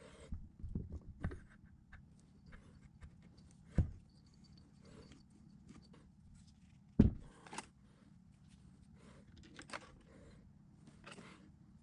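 Parts of a small electric motor being handled during reassembly, with the rotor going into the stator housing and the motor set down on the workbench. Scattered light rattles and clicks, with a few sharp metal knocks, the loudest about seven seconds in.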